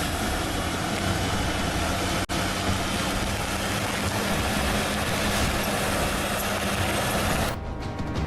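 Heavy machine's engine running steadily with a low hum and dense mechanical noise, broken by a brief cut about two seconds in. Music takes over near the end.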